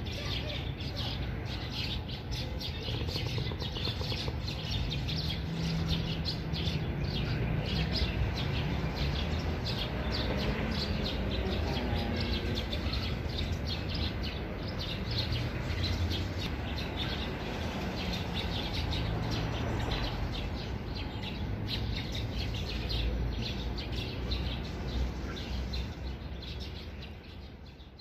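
Wild birds chirping in a dense, continuous run of short calls, among them a drongo and a sparrow, over a steady low rumble.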